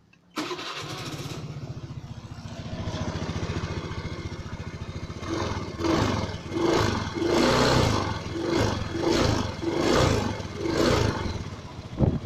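Suzuki Let's scooter's single-cylinder engine running at idle, coming in abruptly, then blipped in a series of short revs about once a second from the middle on. This is the run-up used to show a strange noise from the scooter's CVT.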